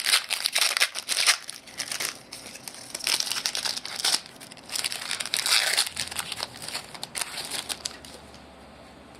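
Trading-card pack wrappers being torn open and crumpled, with irregular crinkling and rustling that eases off after about six seconds into quieter handling.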